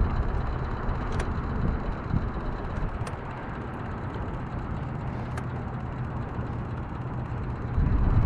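Steady rushing outdoor noise on a small fishing boat, with low rumbles swelling near the start and again near the end, and a few faint clicks.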